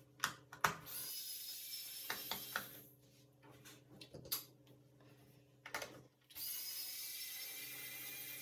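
Small clicks and clatter of tools and parts being handled during laptop work. Between them come two steady high-pitched whirs of about two seconds each, the first about a second in and the second starting near the end.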